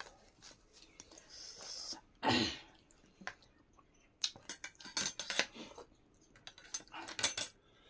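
Fork and spoon clicking and scraping on metal plates during a meal, in clusters of short clicks, with eating sounds of soup and food and one louder noisy sound a little over two seconds in.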